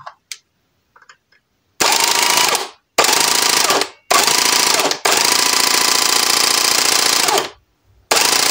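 Hedge trimmer's reciprocating blades running in five bursts as it is switched on and off, the fourth burst the longest at about two and a half seconds. It is a test run after a repair: a small metal plate now holds the blade down in its drive wheel, from which it kept popping out, and the trimmer runs.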